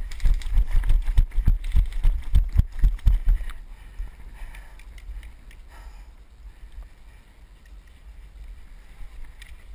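Running footsteps on dry dirt with gear jostling: a quick run of low thumps, about three a second, for the first three and a half seconds. After that come fainter rustling and wind on the microphone.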